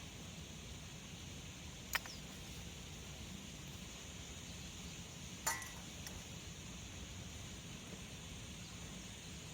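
Faint steady outdoor background hiss with two sharp knocks, about two seconds and five and a half seconds in; the second is a metallic clink that rings briefly.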